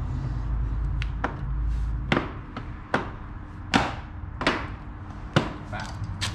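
A string of sharp, irregular knocks and clicks, about eight in six seconds, from parts and tools being handled and fitted on a car's front end, over a low steady hum.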